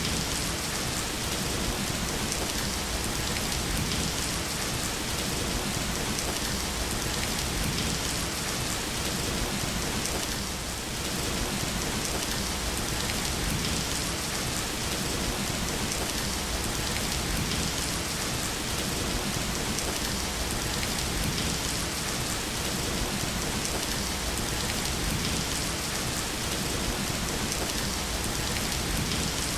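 Steady rain falling, an even continuous hiss with a slight brief dip in level about ten seconds in.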